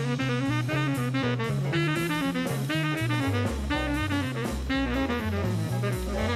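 Jazz music: a saxophone over a bass line stepping note to note and a drum kit.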